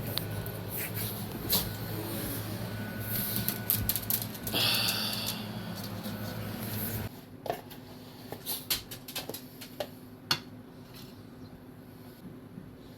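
A steady low mechanical hum that cuts off suddenly about seven seconds in, with a brief high-pitched tone shortly before it stops and scattered clicks and knocks of handling throughout.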